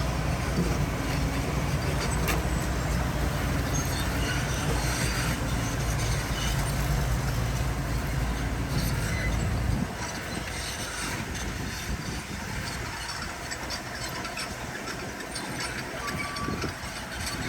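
Heavy diesel earthmoving machinery running with a steady low engine drone. About ten seconds in the drone drops away, leaving a thinner noise with occasional clicks.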